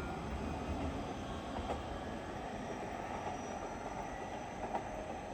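Train at the station, a steady low running noise with a couple of faint clicks.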